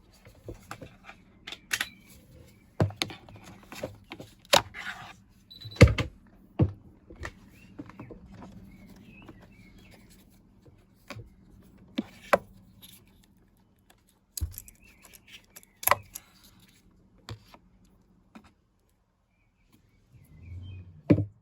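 Irregular clicks, knocks and clatter of hands handling tools and parts, with a few louder knocks, over a faint steady hum.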